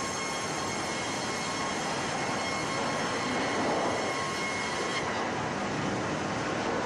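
Twin band-saw sawmill unit running: a steady, loud machine noise with a high, thin whine from the saw that cuts off suddenly about five seconds in.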